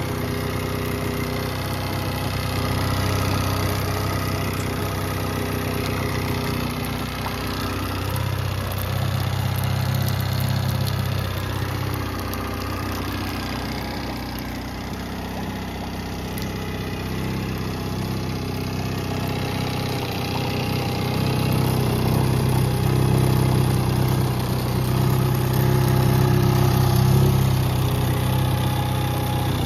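Yamaha 9.9 hp four-stroke outboard motor idling steadily on a test run in a water barrel, growing a little louder over the last several seconds.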